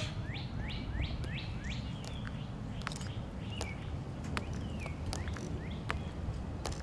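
A bird sings a quick run of repeated chirps for the first two seconds. Through the rest, Tomb guards' metal-tapped heels click sharply on the stone plaza as two soldiers march in step.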